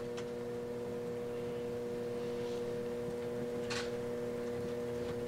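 A steady electrical hum made of several fixed tones over a faint hiss, with one faint click about three and a half seconds in.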